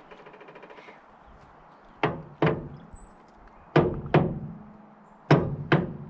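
Six sharp knocks in three pairs, a little under half a second apart within each pair, each ringing briefly. A faint, fast ticking comes in the first second.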